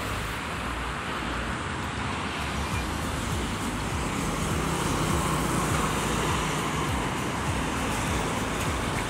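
Road traffic passing along a busy road: cars and trucks going by with steady tyre and engine noise, slightly louder midway. Picked up by a smartphone's microphone during a video recording test.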